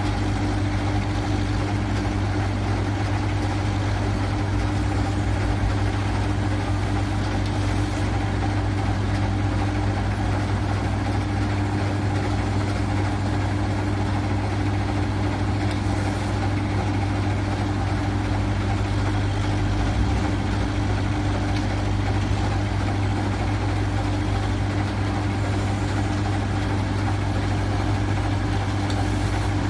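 Steady machine hum: a constant low drone with a fainter, higher steady tone above it.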